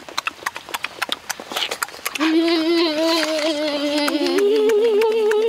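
Quick, uneven smacking clicks of eating for about two seconds. Then two people hum a long, loud 'mmm' with closed mouths while chewing. The second, higher hum joins the first just past the middle, and both hold steady to the end.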